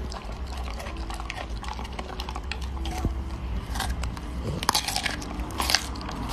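Golden retriever biting and chewing a raw head of broccoli: a run of crisp crunches, the loudest near the end.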